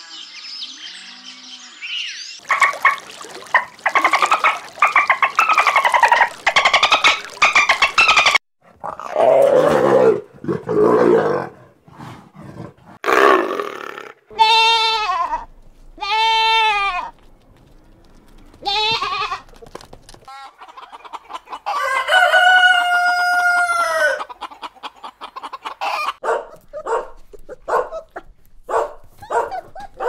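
A run of farm-animal calls: a dense stretch of calls in the first few seconds, then sheep bleating in the middle, with several short bleats and one longer, held bleat, and a string of short calls near the end.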